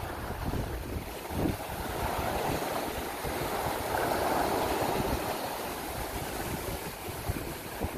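Sailing yacht's hull driving through rough water, the bow wave rushing and foaming along its side and swelling louder from about two seconds in until just past five. Wind buffets the microphone in gusts throughout.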